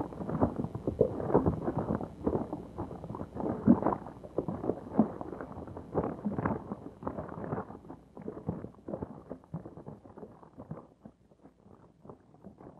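A rapid, irregular clatter of short knocks, several a second, that grows fainter over the second half and fades nearly away near the end.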